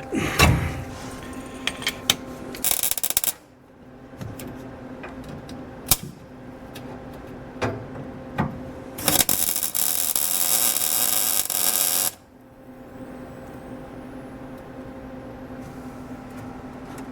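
Scattered knocks and clicks, with two spells of loud rustling or scraping noise, one short and one lasting about three seconds, from a person shifting around inside an old car body. A steady hum runs beneath.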